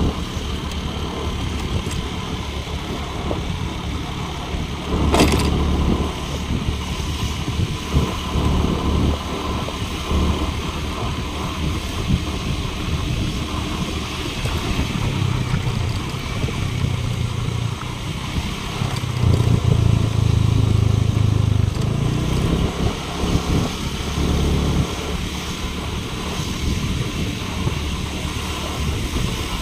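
Motorcycle engine running as the bike rides along, growing louder for a few seconds about two-thirds of the way through. There is one sharp knock about five seconds in.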